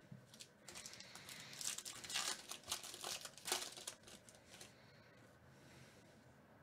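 Foil wrapper of a 2019 Topps Holiday baseball card pack crinkling as it is torn open by hand, a string of crackles that stops about four seconds in.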